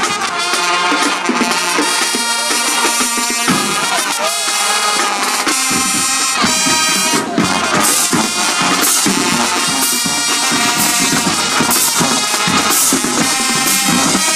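High school marching band playing loudly: brass section with sousaphones sounding held chords, and the drums come in strongly about six seconds in.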